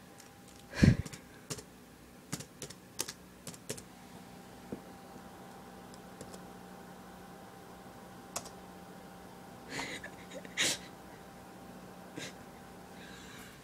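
Laptop keyboard keys clicking in short, scattered runs of typing, with one heavy thump about a second in, the loudest sound here.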